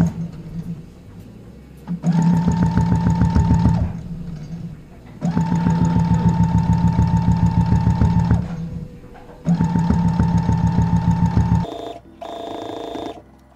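Brother CS-6000i sewing machine stitching through denim in bursts, its motor hum and fast, even needle clatter starting and stopping three times, each run lasting about two to three seconds.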